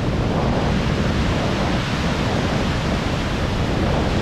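River in spring snowmelt flood, its fast-rising water rushing in a loud, steady wash of noise.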